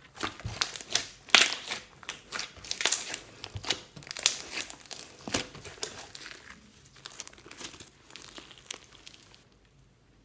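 Hands kneading and squeezing glossy slime coloured with lipstick, making a dense, irregular run of sticky crackles and pops. It stops near the end.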